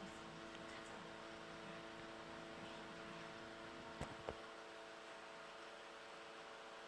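Small electric fan motor of a USB-rechargeable fan umbrella running with a faint, steady hum. Two short clicks about four seconds in.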